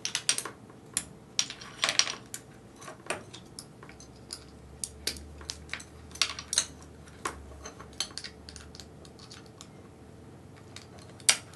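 Irregular small clicks and taps of plastic and metal parts being handled as a Honda dirt bike's throttle housing and cables are fitted over a new throttle tube on the handlebar, with one sharper click near the end.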